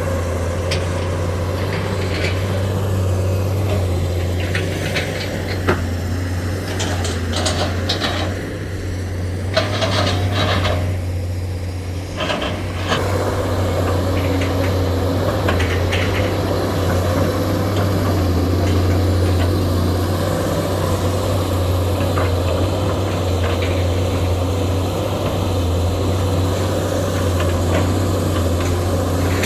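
SANY excavator's diesel engine running steadily under work, with a run of knocks and scrapes from the bucket and machine working soil about a third of the way in.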